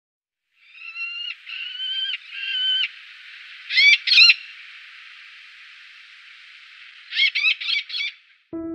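Eleonora's falcon calling: three drawn-out calls, then two loud, sharp calls about four seconds in, and a quick run of four short calls near the end, over a steady hiss.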